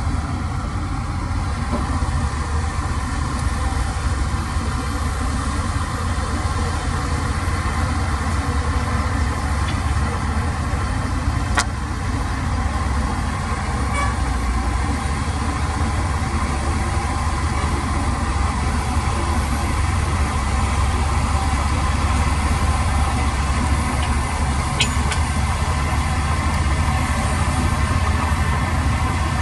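Heavy earthmoving machinery's diesel engine running steadily: a continuous low drone with no change in pace.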